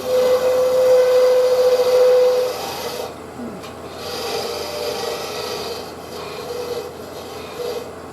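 A turning tool scraping against a spinning maple burl bowl on a wood lathe: a harsh rasp with a steady ringing tone. It is heaviest for the first two and a half seconds, then carries on lighter.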